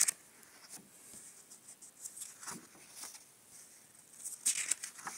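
Paper rustling and soft taps as a paperback picture book's cover is opened and its pages are handled and turned, with a louder page-turn rustle about four and a half seconds in.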